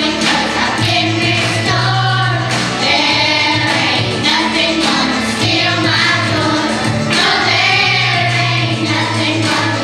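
Children's choir singing a Christian song, with girls' voices leading over instrumental accompaniment that has a steady bass line.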